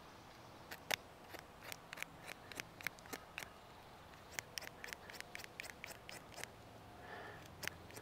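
Victorinox Venture Pro knife blade whittling a thin branch, tapering one end: a string of short, sharp shaving cuts, a few a second, with a brief pause around the middle.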